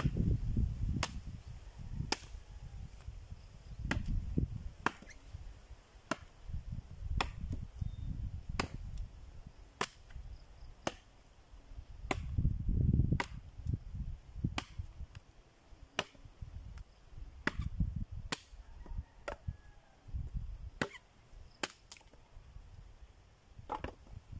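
Machete chopping a rotting, rain-soaked branch: sharp blade strikes come irregularly, roughly once a second, over a low rumble.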